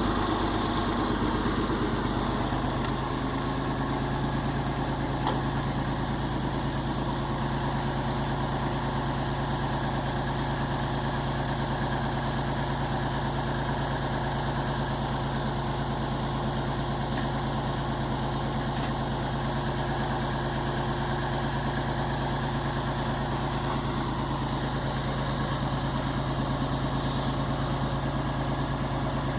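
An engine idling steadily with a low, even hum that holds the same pitch throughout.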